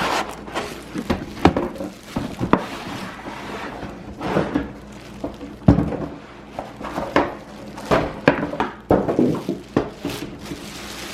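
A cardboard box being opened and a portable propane heater unpacked: cardboard and packaging rustling, with irregular knocks and thunks as the heater and box are handled.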